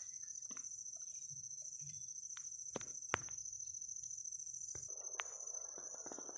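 Steady high-pitched drone of forest insects, like crickets, continuing throughout. A few sharp clicks in the first half, then rustling steps through dry leaf litter during the last second and a half.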